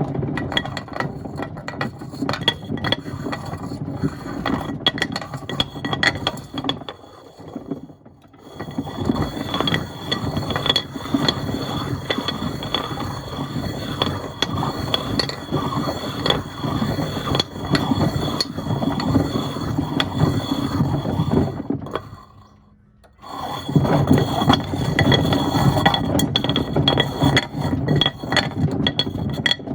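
Stones and pieces of wood tumbling in a Miele washing machine drum: a constant clatter of knocks, clinks and rattles. It falls quiet briefly twice, about a quarter of the way in and again about three quarters in, as the drum pauses between turns.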